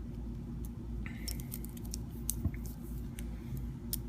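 Scattered light metallic clicks and clinks of metal watch bracelets being handled and flexed, over a steady low hum.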